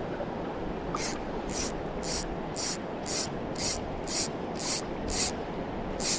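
Fly line being pulled by hand in short, even strokes, each a brief high rasp, about two a second from about a second in, over the steady rush of the river current.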